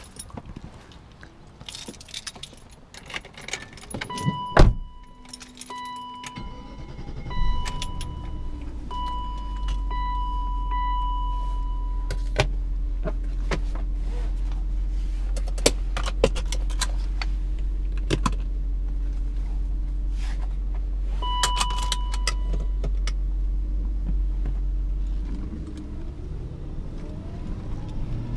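Keys jangling and a car door shutting with a thump, while the dashboard warning chime beeps repeatedly. Then the 1994 BMW 530i's M60B30 3.0-litre V8 is started and settles into a steady idle, with the chime beeping again briefly. Near the end the engine note changes as the car pulls away.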